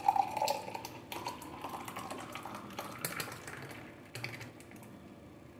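Frothy blended chocolate coffee poured in a thick stream from a mixer-grinder jar into a tall glass, with a dense crackle of splashes and bubbles. A faint tone rises in pitch as the glass fills, and the sound dies down about four seconds in.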